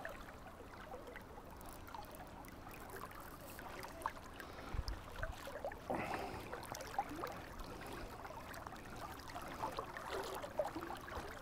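Faint rush and lapping of a flowing river, with scattered small splashes and a brief louder splash about six seconds in.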